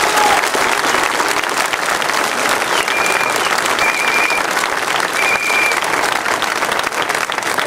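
Theatre audience applauding, a dense, steady clapping, as the curtain falls at the end of the act. A few short high tones sound above it about three to six seconds in.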